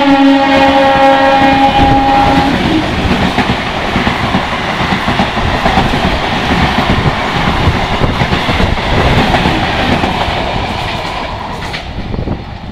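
Electric local train (EMU) passing at high speed. Its horn, dropping in pitch as the front goes by, holds for about two and a half seconds and stops. The coaches then rush past with a clatter of wheels on the rails, which fades away near the end.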